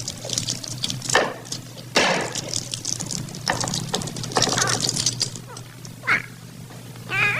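Worn early sound-film soundtrack: a steady low hum and hiss with crackles, and a few short warbling, whistle-like chirps.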